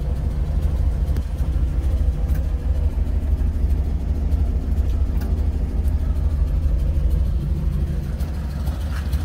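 Austin 8 cwt pickup's four-cylinder engine idling steadily, heard from inside the cab.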